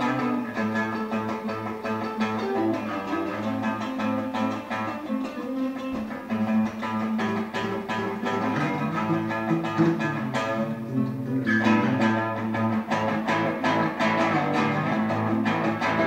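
Rock and roll guitar practice: electric guitars through a small amplifier and an acoustic guitar playing together, strummed chords with a steady beat.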